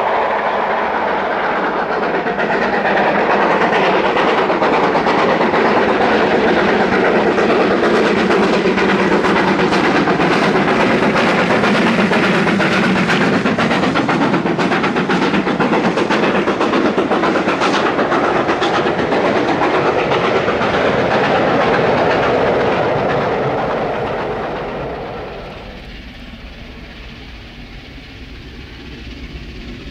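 Mainline steam locomotive working hard up a steep gradient as its train passes close, with the coach wheels clattering over the rail joints. Near the end the sound falls away sharply to the fainter sound of a locomotive in the distance.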